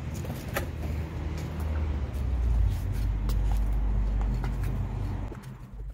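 Wooden stick stirring and mashing thick banku dough in an aluminium pot, with scattered knocks of the stick against the pot. A loud low rumble runs underneath, louder from about two seconds in and dropping away near the end.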